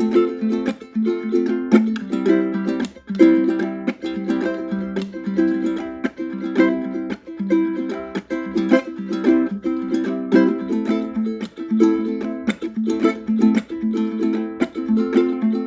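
Low-G ukulele playing a continuous tune, its notes plucked in quick succession.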